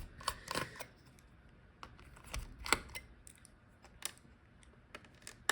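Scattered light clicks and taps of a small screwdriver and metal parts against a laptop's open chassis as the heatsink screws are worked loose, about seven in all, the loudest near the middle.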